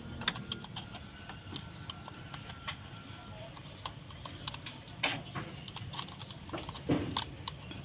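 Scattered light clicks and taps of a small screwdriver tip working against an opened Samsung A10s smartphone's mainboard and frame, louder about five and seven seconds in.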